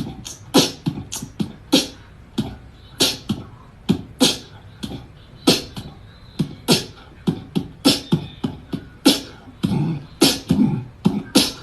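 A fast, uneven series of short, sharp pops and clicks, about two a second, each with a low thump, like mouth percussion.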